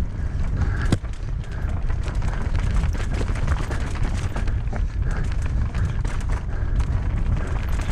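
Knolly Fugitive LT mountain bike riding fast down a rough dirt trail: steady wind rumble on the microphone with constant rattling and clicking from the bike and tyres over rocks and roots, and one sharper knock about a second in.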